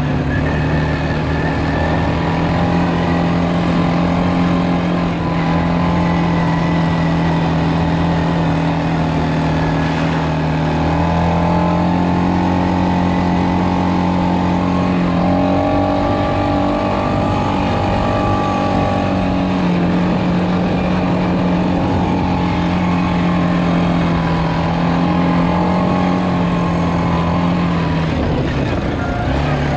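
ATV engine running steadily as the quad rides along a dirt trail, its note shifting up and down a few times as the throttle changes.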